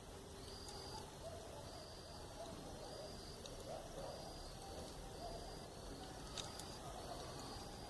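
Night ambience: an insect chirps in an even rhythm, one high-pitched pulse about every second, over faint wavering low calls. A few soft crackles from a campfire come through, the sharpest about six seconds in.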